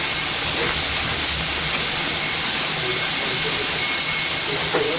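Steady hiss of escaping steam from a Baldwin 2-8-2 steam locomotive standing in steam.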